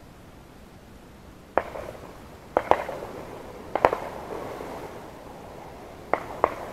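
Shotgun shots from duck hunters nearby: about seven sharp reports, several in quick pairs, each followed by a short rolling echo.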